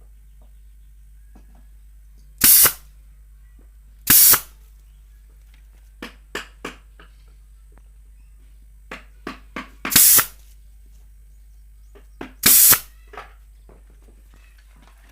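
Pneumatic nail gun firing four times, each shot a short, sharp burst, with fainter clicks and knocks in between.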